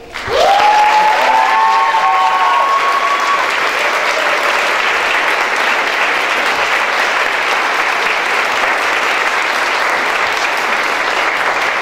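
Audience applauding steadily after a closing thank-you, with a few long held whoops over the clapping in the first three seconds.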